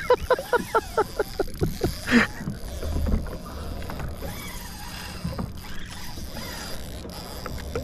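Water lapping against a kayak's hull, with wind on the microphone. Over the first two seconds there is a rapid run of short, loud, sharp sounds, then a single louder burst at about two seconds.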